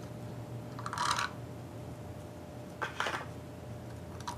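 Two brief scraping, handling sounds, about a second in and near three seconds, as the rusty cylinder head of an antique Briggs & Stratton 5S engine is worked loose from its stuck head gasket, over a faint steady low hum.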